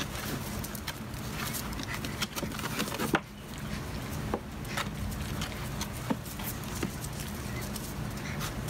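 Puppies' claws scratching and clicking on a hard plastic duck decoy and concrete as they clamber over it, with scattered sharp taps, the loudest about three seconds in.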